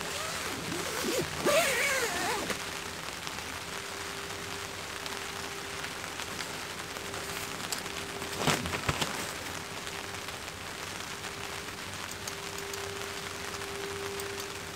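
Steady rain pattering on a tarp and tent fly. A short gliding whine about two seconds in, and a brief knock with a short pitched sound about halfway through, stand out above the rain.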